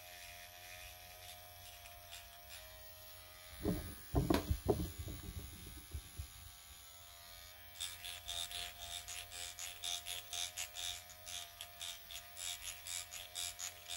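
Dr. Pen electric microneedling pen buzzing steadily as it is worked over the face. A few loud low thumps come about four seconds in, and from about halfway a fast, uneven scratchy ticking joins the buzz.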